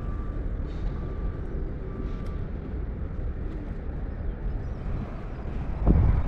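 Steady low outdoor rumble, with one dull thump near the end.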